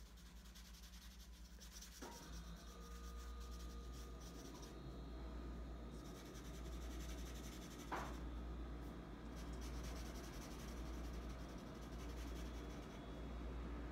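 Marker scrubbing back and forth on paper while colouring in a small area in black, with a light knock about two seconds in and another about eight seconds in.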